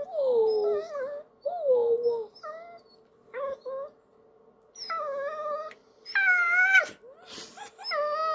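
Toy poodle whining in a string of about seven short calls that bend up and down in pitch, the loudest about six seconds in. It is sulking in protest at its owner saying goodbye.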